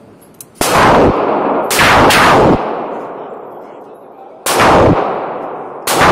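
Five loud gunshots, each followed by a long echo off the walls of an indoor firing range. The pattern is a single shot, a quick pair about a second later, another about two seconds after that, and a last one near the end.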